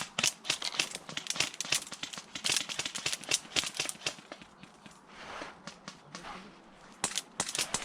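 Airsoft gunfire: a rapid, irregular run of sharp snaps and clicks of shots and BBs striking, easing off past the middle and picking up again near the end.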